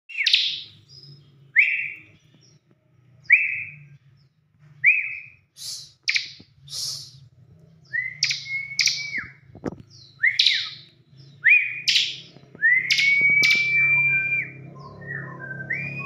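Bar-winged prinia (ciblek) singing: a string of short whistled calls, each a quick upward sweep with a sharp high note, about one every one and a half seconds, growing into longer held whistles, one held about two seconds near the end. A faint low hum runs underneath.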